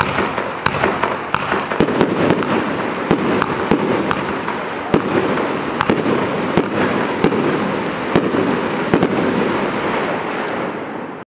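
Celtic Fireworks 'Gender B' firework cake firing its shots. Sharp cracks come one or two a second over continuous dense crackling from the bursting stars.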